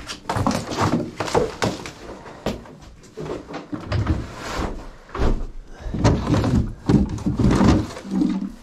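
Irregular knocks, thumps and clatter of furniture and household items being handled and moved during a house clear-out.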